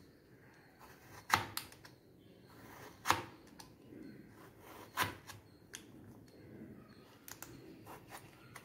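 Kitchen knife cutting a raw potato into fry strips, the blade clacking sharply on the cutting board every second or two, with a few fainter ticks near the end.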